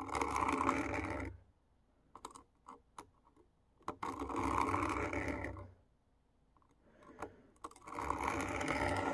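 Knife edge drawn across a diamond sharpening plate in a guided sharpener, sharpening the whole edge: three long grinding strokes, each about one and a half to two seconds, with faint clicks between them as the blade is set back at its angle.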